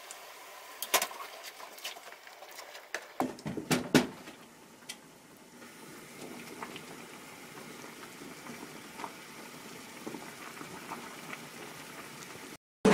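Pot of fish-cake soup (eomuk-tang) boiling, bubbling and popping. There are a few sharper pops and clicks in the first four seconds, then a steady faint bubbling.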